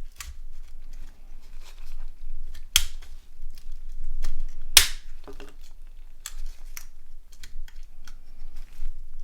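Clicks and snaps of a mobile phone's small plastic and metal parts being handled and pried apart during disassembly, with two sharp, loud snaps about three and five seconds in.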